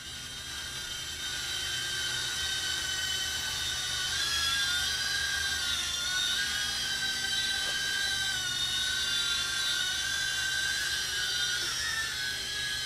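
Inductrix 200 quadcopter's motors and propellers whining in flight: a high-pitched whine whose pitch wavers up and down as the throttle changes. It grows louder over the first few seconds as the drone is brought closer.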